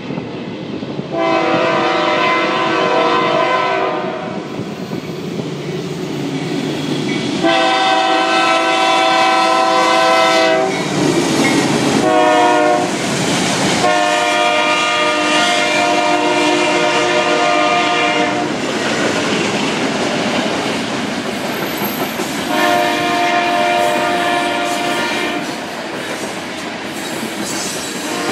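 BNSF freight train's multi-chime air horn sounding long, long, short, long, the standard grade-crossing signal, then one more long blast, as the loaded grain train approaches and passes. Under and between the blasts the locomotives run and the covered hopper cars' wheels clatter over the rail joints.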